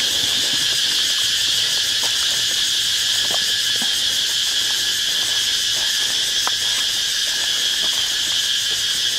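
Dense, steady chorus of night insects, a continuous shrill trill that does not let up, with a few faint scattered clicks beneath it.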